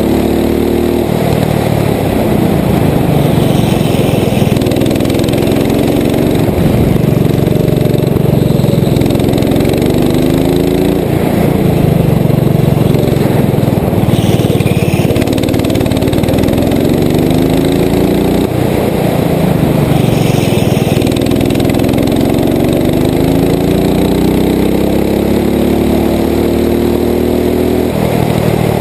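Rental go-kart's engine heard close up from on board, revving up in long rising sweeps on the straights and dropping back for the corners, several times over, over a steady low rumble.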